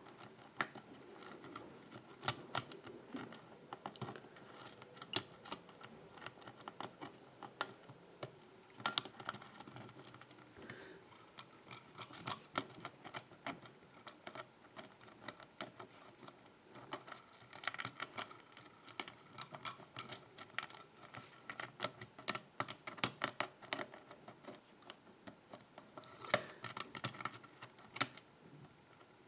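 Lock pick and tension wrench working the pins of a six-pin pin-tumbler lock with security spool pins: faint, irregular metallic clicks and scrapes, coming in denser clusters several times.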